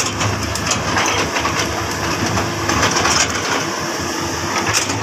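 Komatsu PC200 hydraulic excavator's diesel engine running steadily under load, with irregular clanks and knocks as the bucket works in wet mud.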